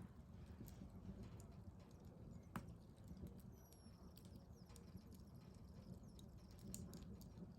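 Faint wood fire crackling in a fireplace: scattered small pops over a low steady rumble, with one sharper pop about two and a half seconds in.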